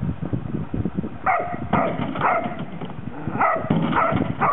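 Dog barking repeatedly, short sharp barks in quick twos and threes starting about a second in.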